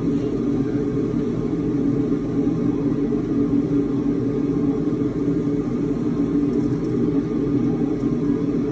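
Kitchen cooker hood extractor fan running, a steady low whir.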